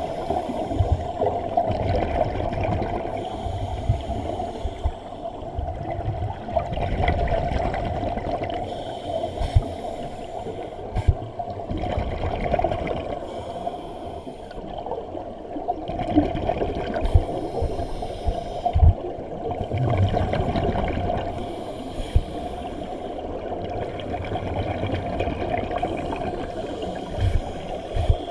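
Scuba regulator breathing heard underwater through a camera housing: surges of exhaled bubbles gurgling every few seconds over a steady muffled hum, with a few short knocks.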